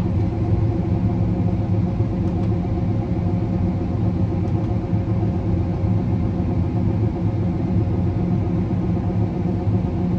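Combine harvester running steadily while cutting wheat, heard from inside the closed cab: an even low hum with a few steady tones.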